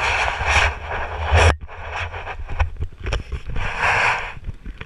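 Wind buffeting the camera's microphone: a heavy low rumble with gusts of hiss, the first cutting off suddenly about one and a half seconds in and another near four seconds, and short knocks from handling or footsteps.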